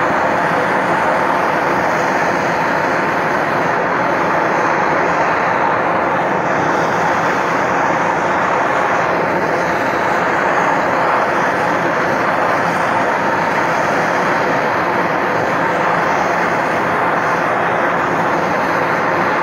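Propane torch burning with a steady rushing hiss, its flame held on a steel reloading die to heat it and loosen a brass case stuck inside. The torch shuts off abruptly at the end.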